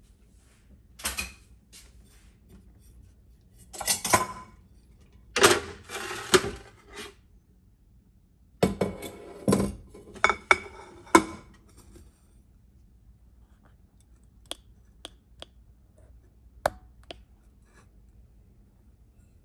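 Kitchen utensils and dishes clattering and clinking against a glass mixing bowl, in irregular bursts over the first twelve seconds, then a few single sharp clinks.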